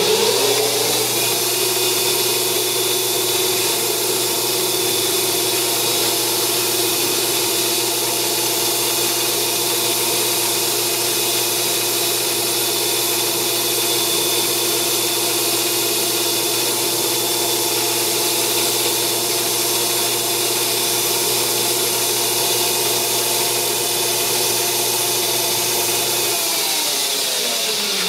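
Grizzly G0602 bench lathe under CNC control, its spindle running at a steady speed while the tool cuts the spinning part. Near the end the motor hum cuts off and the spindle winds down, its pitch falling.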